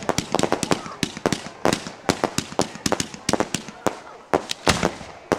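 Aerial fireworks bursting: a dense, irregular string of sharp pops and bangs, several a second and of varying loudness.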